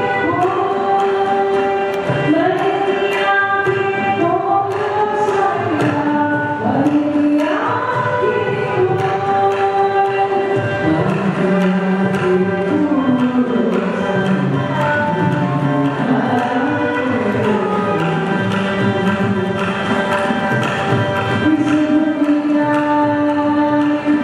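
Live Carnatic vocal music: a woman's and a man's voices singing long, gliding melodic lines, with a violin following the melody and a mridangam drum playing steadily underneath. About ten seconds in, the melody drops into a lower register.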